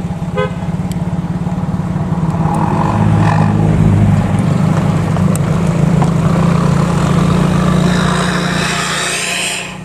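A vehicle's engine running steadily over road noise while driving on a rough, broken road. The engine hum gets louder about three seconds in.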